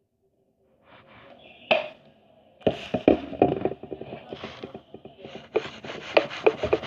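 Stiff slime being worked by hand, giving a dense run of irregular sticky clicks and pops after a single sharp click.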